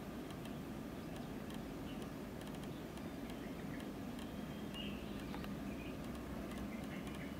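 Steady low background hum with scattered faint ticks, and a few faint high chirps about halfway through.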